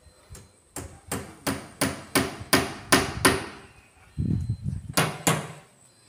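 Hammer driving nails to fix a banner to a house wall: about eight quick blows at roughly three a second, a pause, then two more blows.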